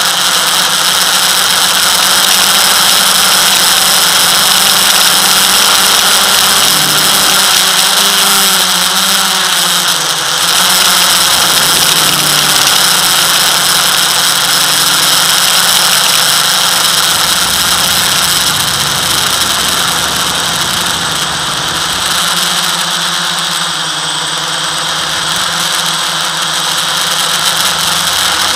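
FPV quadcopter's brushless motors and propellers whining steadily at a high pitch, the lower tones gliding up and down a little as the throttle changes.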